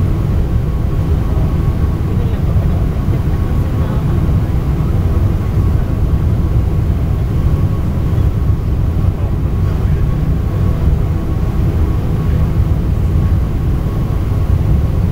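Steady cabin roar inside a Boeing 747-400 airliner descending on approach: engine and airflow noise heavy in the low end, with a faint steady hum on top.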